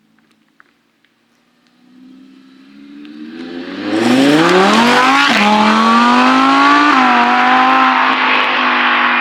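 Sports car engine accelerating hard, its note rising as it comes closer and gets very loud, with quick upshifts about five seconds in and again about seven seconds in, then holding a loud, steady note.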